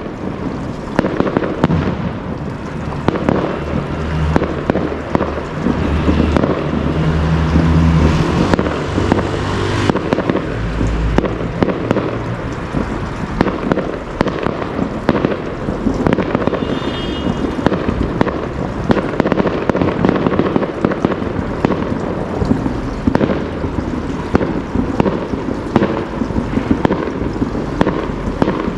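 Fireworks display: a dense, continuous run of bangs and crackles, with heavier, deeper booms between about four and ten seconds in.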